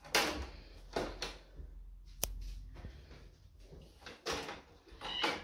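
Plastic frame of an LG 47LB652V TV's backlight assembly being handled and set into place: a handful of light knocks and clatters, with one sharp click about two seconds in.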